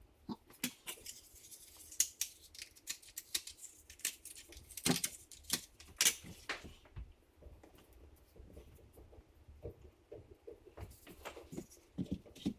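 Rapid small clicks and light scraping of a grout float pressing and tapping natural stone mosaic tiles into the adhesive to level them, with a quieter stretch in the middle.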